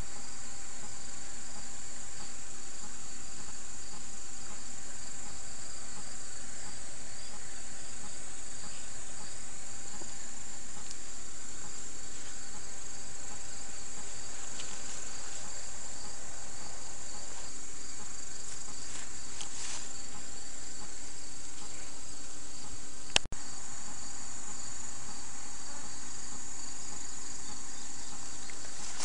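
A steady chorus of insects in the grass, high and evenly pulsing, with a single sharp click about three-quarters of the way through.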